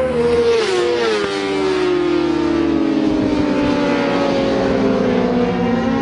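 600cc race motorcycles running at high revs. The engine note drops quickly about a second in, slides lower as the bike slows for a corner, then starts rising again near the end as it accelerates.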